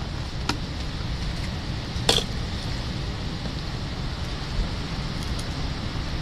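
Steady low rumbling noise, like wind on the microphone, with a few sharp clicks as hands and a spoon handle spiny sea urchin shells; the loudest click comes about two seconds in.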